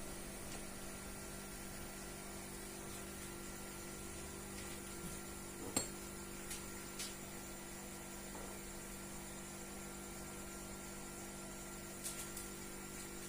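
Faint steady electrical hum with a few light clicks, the sharpest about six seconds in and a couple more near the end.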